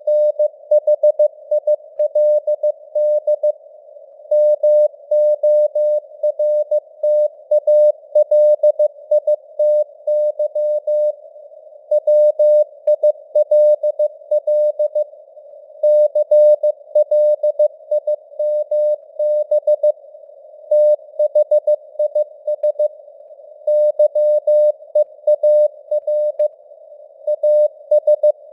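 Morse code sent at 15 words per minute as a keyed tone of about 600 Hz, dots and dashes in groups with short pauses between words, spelling out news headlines. Under it is a hiss of simulated radio noise around the same pitch.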